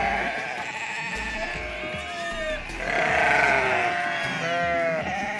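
A herd of goats bleating, several animals calling over one another.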